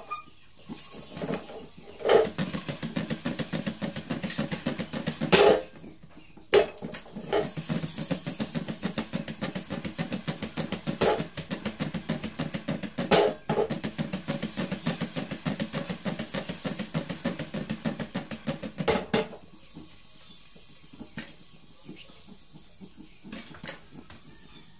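Popcorn rattling and popping inside a covered frying pan with a glass lid as the pan is shaken back and forth over the burner, a fast, continuous clatter with a few louder knocks. The shaking stops about three-quarters of the way through, leaving only faint scattered clicks.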